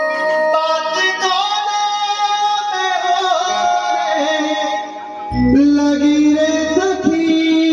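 A male singer holds long sung notes into a microphone over a live band of held instrument tones and hand drums. The music dips briefly about five seconds in, then a low drum hit brings it back in louder.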